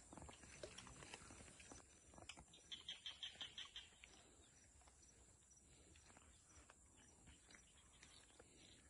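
Faint outdoor quiet with scattered soft ticks and clicks. About three seconds in comes a quick run of about eight short high chirps, a small animal's call.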